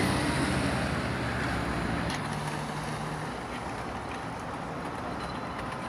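Road traffic: a vehicle drives past close by and away, its engine hum fading over the first three seconds, leaving a steady wash of road noise.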